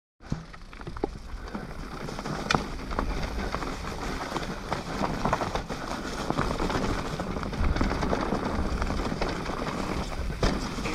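Enduro motorcycle being ridden over a rough trail: the engine runs under a steady rush of wind and noise, with many sharp knocks and rattles from the rough ground. It starts abruptly just after the beginning.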